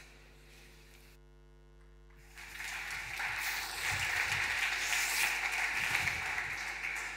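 Faint electrical mains hum, then from about two seconds in an audience applauding, dying away near the end.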